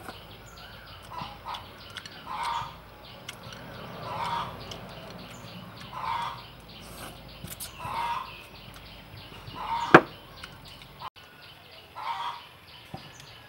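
Chickens clucking in short calls every couple of seconds, with one sharp click about ten seconds in.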